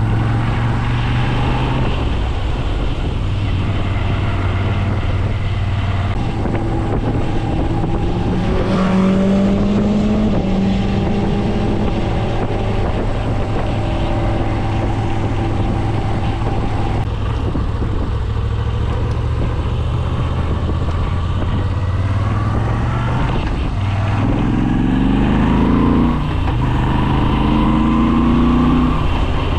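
Moto Guzzi V7 850 Special's air-cooled transverse V-twin on its original exhaust, running under way and heard from inside the rider's helmet. The engine pitch climbs as it accelerates about a third of the way in and again near the end, with drops between as gears change.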